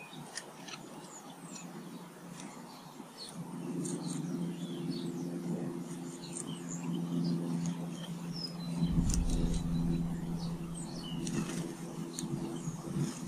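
Small garden birds chirping, with many short high calls throughout. A steady low hum starts about three seconds in and grows louder around the middle.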